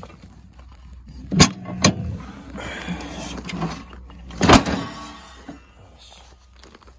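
Three sharp knocks, two close together about a second and a half in and a louder one about four and a half seconds in, over a low steady rumble that stops near the end.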